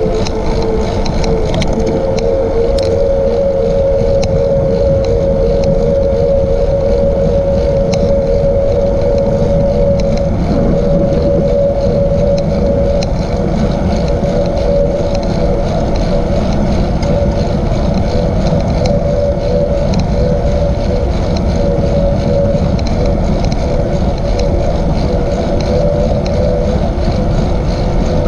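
Steady riding noise from a bike moving along a paved trail at about 12 to 18 mph: wind buffeting the microphone and tyre rumble on the asphalt, with a steady whine underneath.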